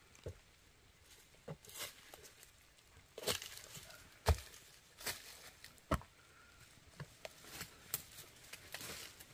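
Dry twigs snapping and dead leaves crunching underfoot as a person climbs through dry brush, an irregular scatter of sharp cracks and scrapes, the loudest crack about four seconds in.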